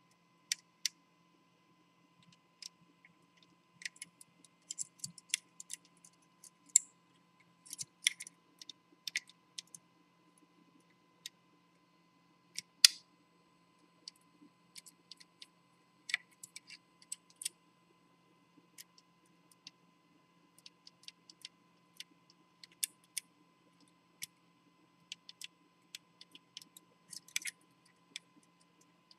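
Curtain pick and pick wire working the levers of an ERA Viscount five-lever deadlock: irregular small metallic clicks and scrapes as the levers are lifted one at a time, with one louder click about halfway through.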